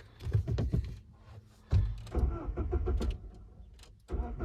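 Car keys jangling and clicking as a key is fumbled into the ignition, in two bursts of handling noise with a few sharp clicks.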